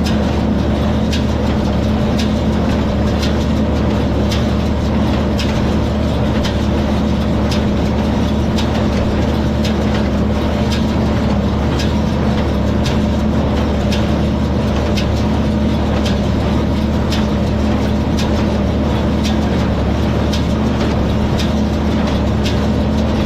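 Tractor engine running steadily while working a hay baler, a constant drone with a regular click a little more than once a second.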